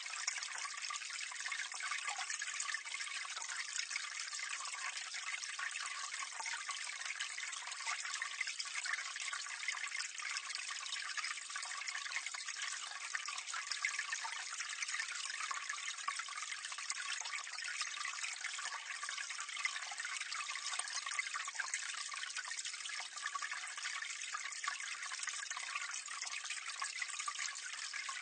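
Water splashing and trickling steadily into a drain gully, heard up close, an even hiss and patter of falling water with no let-up.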